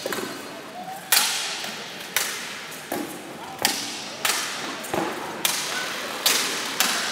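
Steel swords striking plate armour and shields in armoured combat: about ten hard blows, roughly one every half second to a second, each ringing briefly in the hall.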